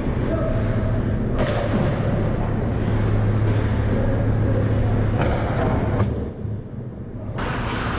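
Ice hockey play on a rink: skates on the ice and several sharp knocks of sticks and puck over a steady low hum. The sound goes muffled for about a second just after six seconds in.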